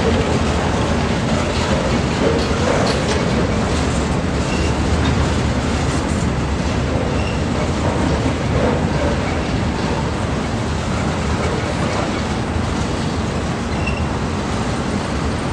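Mixed freight train of autoracks, flatcars and a tank car rolling past, its steel wheels running on the rails in a steady, loud noise. A few short, faint, high squeaks come through now and then.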